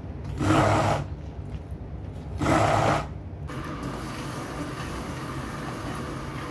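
Hand-held stick blender motor running in two short bursts, about two seconds apart, in thick coarse peanut paste. Then a steady low hum from about three and a half seconds in.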